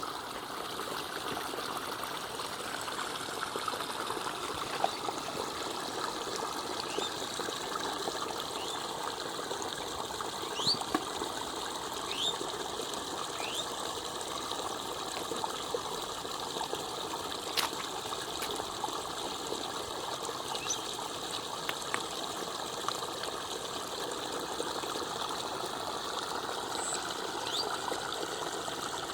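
Water trickling and flowing steadily, with a few faint clicks.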